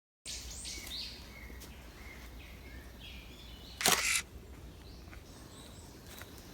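A camera shutter clicks once, loudly, about four seconds in, as a quick double snap, over small birds chirping and a faint steady outdoor background.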